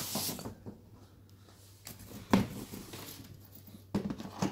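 Cardboard laptop box being handled: a brief scraping rustle, then a single sharp knock about two seconds in and a couple of lighter taps near the end, over a faint steady low hum.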